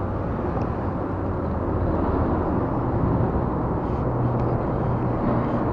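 Steady low engine drone with a constant deep hum, growing slightly louder over the first few seconds.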